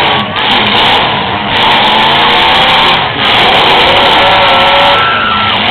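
Demolition derby cars' engines revving hard together, a loud dense racket with the pitch rising and falling.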